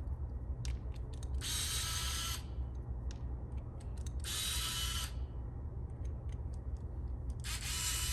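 Small electric precision screwdriver whirring in three short runs, each just under a second long and a couple of seconds apart, as it backs out small phone screws, with light clicks of the bit between runs.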